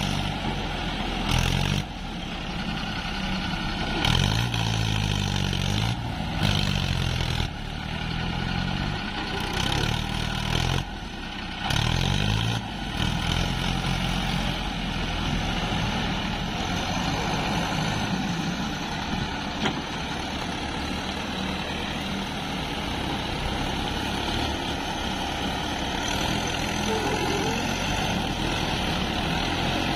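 Mahindra tractor diesel engine under heavy load, pulling a loaded soil trolley through soft dirt where it is getting stuck. For the first dozen seconds it revs up and down again and again, then settles into a steadier labouring run.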